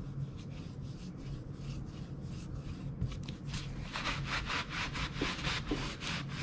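Stain being worked into a wooden board: faint brush strokes at first, then a paper towel rubbed back and forth over the wood from about four seconds in, louder, in a quick scrubbing rhythm of about three strokes a second.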